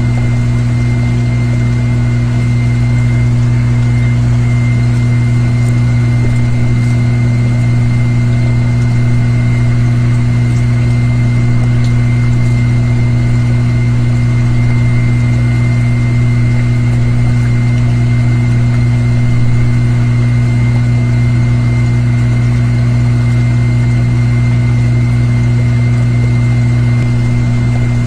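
Steady machine hum of a running motor: a constant low tone with a thin, high whine above it, unchanging in pitch and level.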